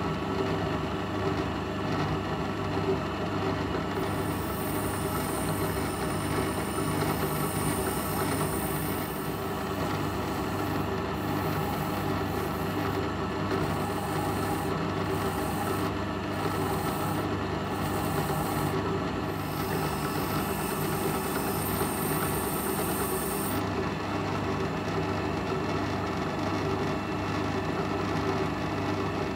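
Drill press running with a brass wire wheel brush scrubbing rust off an old HAZET open-end wrench held against it by hand. A steady motor hum, with a high scratchy hiss that comes and goes as the wrench is pressed on and turned against the wire.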